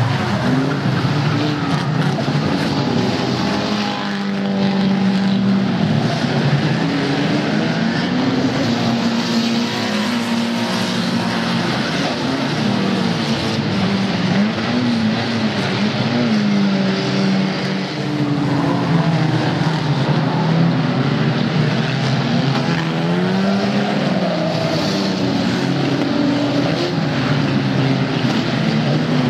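Several unlimited banger race cars' engines running and revving hard at once, their pitches rising and falling over one another.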